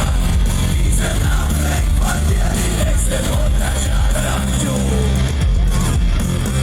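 Loud rock music playing: a full band with heavy bass and drums, no clear sung words.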